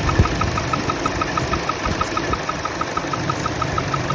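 2014 Chevrolet Trax 1.4-litre turbo engine idling with a fast, regular high-pitched squeak, about six chirps a second, with a low thump just after the start. The squeak comes back with the A/C compressor engaged and was traced to loose spark plugs and the belt tensioner.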